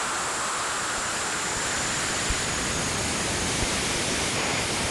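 Steady static-like hiss with a faint high whine and a few brief low pops. It is a sonified recording of Cassini's instruments as the spacecraft crossed Saturn's rings, where the pops are tiny ring particles striking it.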